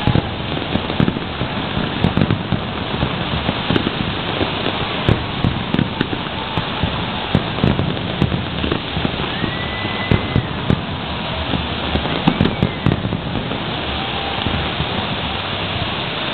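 Large aerial fireworks display: a continuous dense crackle with irregular booms of bursting shells, often several a second.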